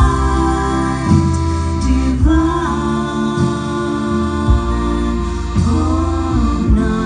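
Three women singing slow close harmony live, held chords with gliding notes, over a soft backing of accordion, guitar and double bass.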